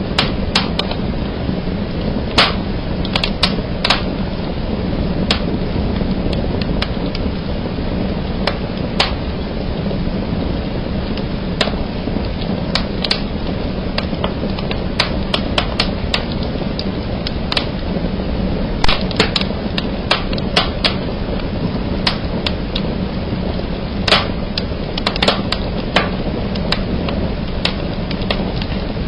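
Wood fire burning in a fireplace: a steady rushing of the flames with sharp cracks and snaps at irregular intervals, several a second at times.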